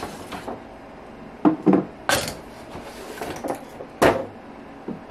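Small glossy decorative pumpkins being taken out of a cardboard box and set down on a wooden shelf: a few sharp clinks and knocks, the sharpest about four seconds in.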